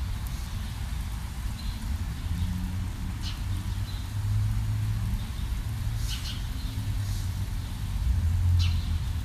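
A small jeweller's hammer tapping a wire S clasp on a steel bench block: a few light, sharp metallic taps spaced a couple of seconds apart, over a steady low rumble.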